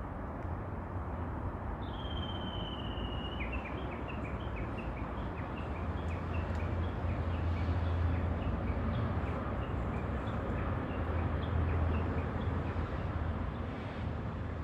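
Japanese bush warbler calling: a long high whistle about two seconds in, then a long run of short repeated notes, about three a second, carrying on for some ten seconds. Under it runs a steady low rumble.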